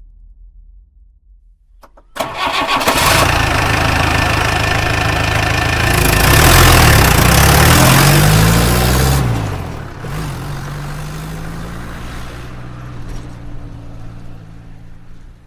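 School bus engine starting about two seconds in, then revving with the pitch climbing over several seconds before dropping back. It then runs more quietly and steadily as the bus pulls away, fading near the end.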